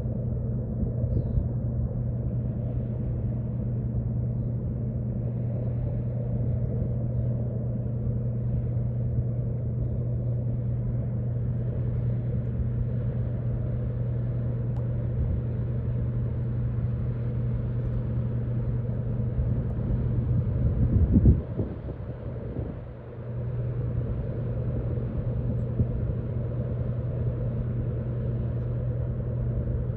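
Low, steady drone of the lake freighter's engines across the water, under an uneven low rumble. The rumble swells louder about two-thirds of the way through, then briefly drops away.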